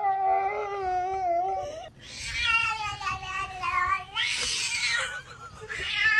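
Domestic cat yowling: a string of long, drawn-out meows whose pitch bends up and down, the first held almost steady for nearly two seconds.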